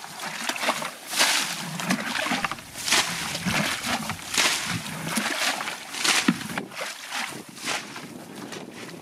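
Shallow muddy water splashing and sloshing about once a second as it is scooped and thrown out with a plastic bucket, with feet moving in the wet mud.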